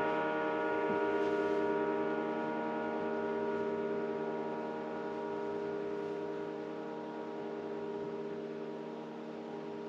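Paiste Sound Formula Reflector 20-inch Power Ride cymbal ringing out after being struck, a sustained wash of many steady overtones that slowly fades.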